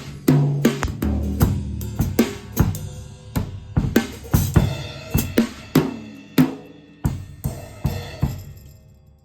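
Drum kit played one-handed with bundled dowel rods (a Pro-Mark Hot Rods knockoff): loose, irregular hits on drums and cymbals, about two or three a second. The last hits come near the end and then ring out.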